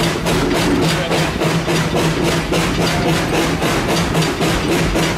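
Steam exhaust beats of the NZR K class steam locomotive K 88 as it works its train under way, about four to five even beats a second over a steady low tone, heard from the footplate.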